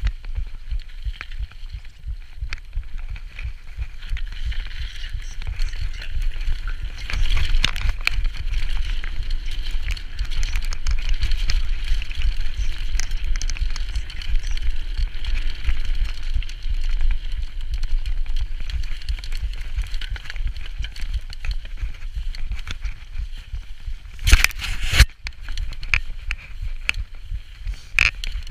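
Mountain bike riding fast over a wet, muddy trail: tyres crackling over grit and mud and the bike rattling, with wind rumbling on the microphone. A loud, sharp clatter about three-quarters of the way through.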